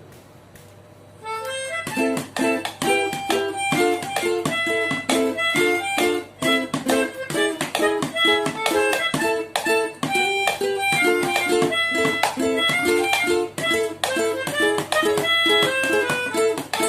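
Ukulele being strummed in a steady rhythm, chords ringing, starting about a second in.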